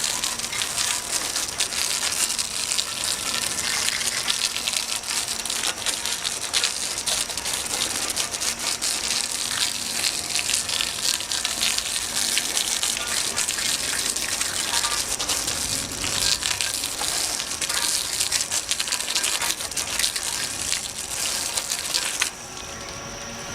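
Water spraying steadily onto an aluminium alloy wheel to rinse it, a continuous spattering hiss that cuts off sharply near the end.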